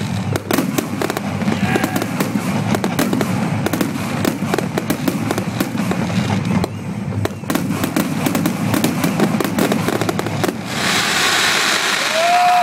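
Fireworks display finale: a dense barrage of shells and crackling effects going off in rapid, overlapping bangs. Near the end a crowd starts to cheer and applaud.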